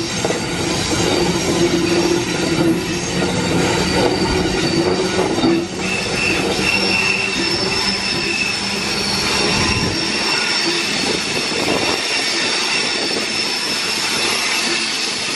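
Queensland Rail NGR electric multiple unit running past close by as it pulls out, with a loud, steady rumble of wheels and running gear. About six seconds in, a steady high-pitched wheel squeal sets in and carries on, while the low rumble drops away about ten seconds in.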